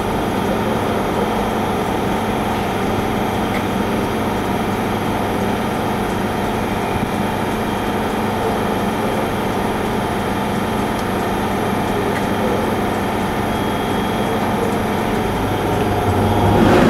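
Class 91 electric locomotive standing at the platform with its equipment running: a steady electrical hum with steady low tones. Near the end the hum grows louder.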